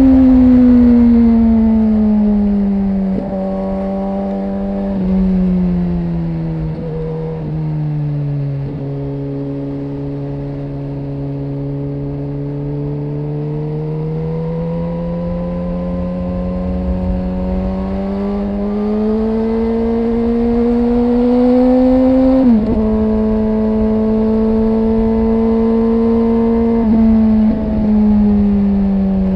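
Suzuki GSX-R 1000 inline-four sport bike engine and exhaust on the move. The engine slows over the first several seconds with brief breaks in the note and holds low for a few seconds. It then pulls back up gradually, with short breaks and pitch drops at gear changes about two-thirds of the way in and again near the end.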